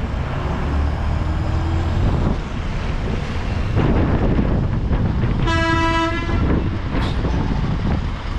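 Bus engine running as the bus rolls slowly, heard from inside the bus, with a single horn blast lasting about a second a little past halfway.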